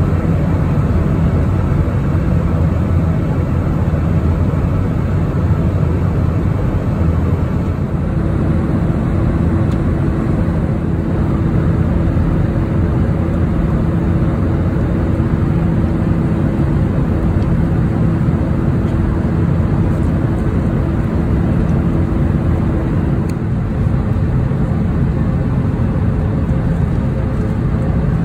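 Airbus A320 passenger cabin noise in flight: the steady low drone of the jet engines and airflow heard from a seat. A faint steady hum joins about eight seconds in and drops away a few seconds before the end.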